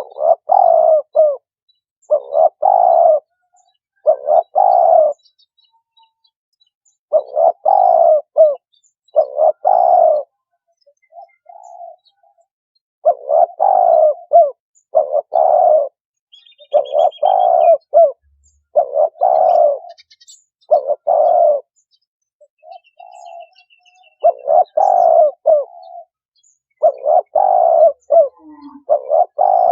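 Spotted dove cooing: loud, clear phrases of a few coos each, repeated about every two seconds with a couple of short pauses.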